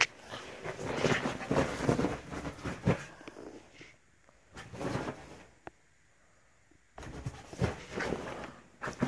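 Rustling and bumping of fabric and phone handling as a dog moves about right against the camera, with a few seconds of quiet and a single click in the middle.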